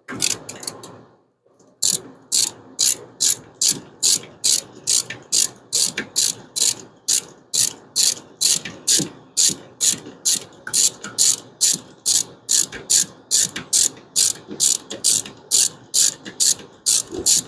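Hand socket ratchet clicking in steady back-and-forth strokes, about two a second, turning a bolt on an engine. It starts with a short burst, a brief pause, then runs evenly.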